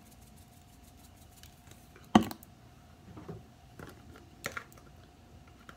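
Spice containers being handled on a kitchen counter: a few sharp clicks and knocks, the loudest about two seconds in, over a faint steady hum.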